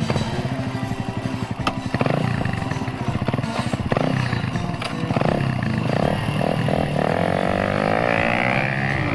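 Kawasaki KLX125's 125 cc single-cylinder four-stroke engine through a BEAMS R-EVO stainless silencer, revving up and down as the bike is ridden, with background music over it. The pitch rises and falls repeatedly in the second half.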